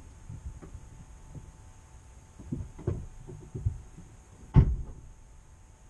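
Muffled low thumps and knocks, a few in the middle and the loudest about four and a half seconds in, over a faint steady hum and hiss.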